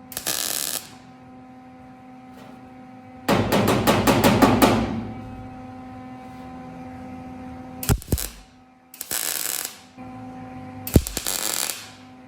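Welder tack-welding a sheet-steel patch panel into a door: four short bursts of crackling arc, the longest about a second and a half a few seconds in, over a steady machine hum.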